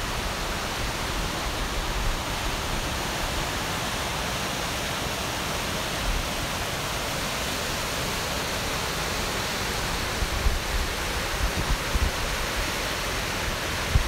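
The upper Kern River's rapids rushing: a steady, even wash of fast-flowing whitewater.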